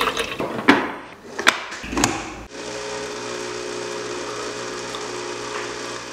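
A few sharp clicks and knocks, then, about two and a half seconds in, a capsule coffee machine's pump starts and hums steadily as it dispenses coffee.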